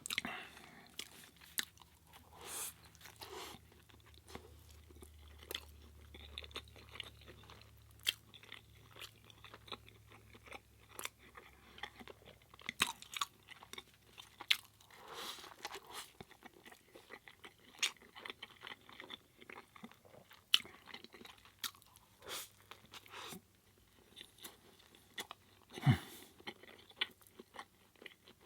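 Close-miked chewing of a soft burger: irregular wet mouth clicks, smacks and bites. One sharper, louder click comes near the end.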